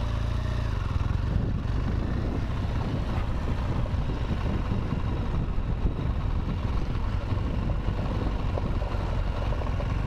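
BMW R1200 GS Adventure's boxer-twin engine running steadily as the bike rides down a rough dirt and gravel track, a continuous low rumble with no breaks.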